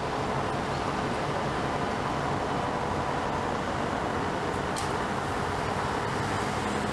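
Steady city road traffic: a continuous hum of many passing vehicles with no single car standing out.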